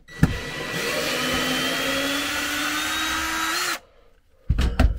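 Handheld power tool running for nearly four seconds, its motor tone creeping slowly higher, then cutting off sharply. A few sharp knocks follow near the end.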